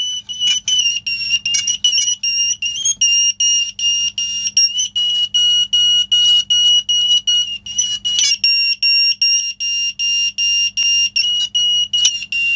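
Optical smoke alarm's piezo sounder going off: a shrill tone in rapid, even beeps, made louder by the disc pressing against the plastic housing. It cuts off suddenly.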